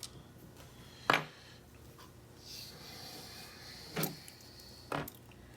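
Three sharp clicks, about a second in, at about four seconds and just before five, with a faint scraping between them: small lock parts and tools being handled and set down while a pin-tumbler challenge lock is gutted.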